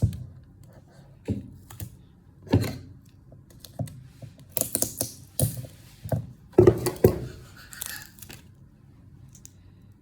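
Small plastic toy pieces being handled and pressed together by hand, giving irregular clicks, taps and short rustles, busiest in the second half.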